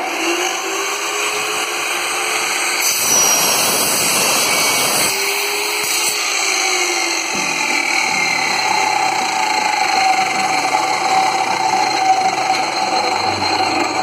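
Cut-off saw with a carbide-tipped blade running and cutting through a 4×4 aluminium box-section profile, with a louder, harsher stretch around the third to fifth second.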